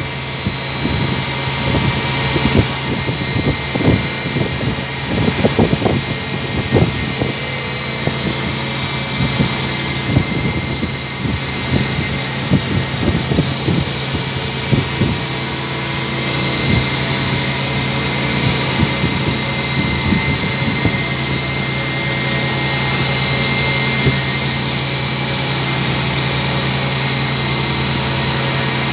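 CNC vertical machining centre running, a steady machine hum with a high-pitched whine over it. Irregular knocks and clicks sound through the first half, then it settles into a steadier, slightly louder run from about halfway.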